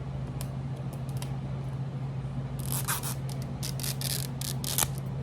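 Plastic and paper toy packaging crinkling and rustling as it is handled, in a dense run of crackles from about halfway through, over a steady low hum.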